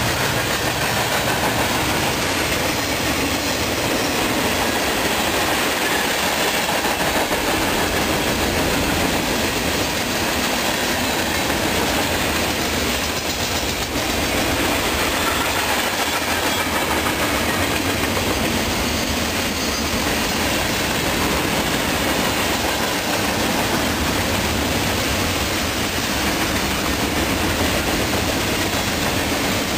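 Freight cars of a passing CSX freight train rolling by, a steady rumble of steel wheels on the rails.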